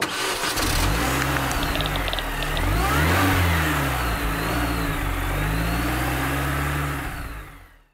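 Car engine sound effect revving, its pitch rising and falling several times, fading out near the end.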